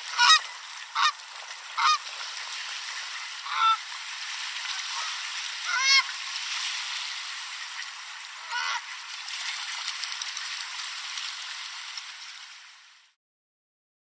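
Canada geese honking: about six short, loud honks spaced irregularly over a steady hiss of small waves lapping the shore, the sound stopping shortly before the end.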